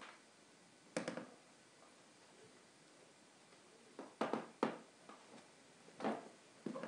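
A few scattered knocks and taps of objects being handled on an altar: one about a second in, a quick cluster of three or four around four seconds, and two more near the end, with a short small-room echo.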